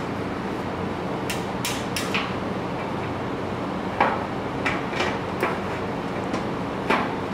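Sheet-steel top panel of a flat-packed wall cabinet being handled and set onto its corner uprights: a few light clicks, then a knock about four seconds in as it lands, followed by smaller taps and knocks of metal on metal as it is shifted into place.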